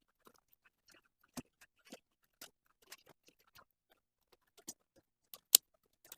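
Irregular small clicks and taps of repair tools against a Samsung Galaxy A30's plastic middle cover as it is unscrewed and lifted off, with one sharp louder click about five and a half seconds in.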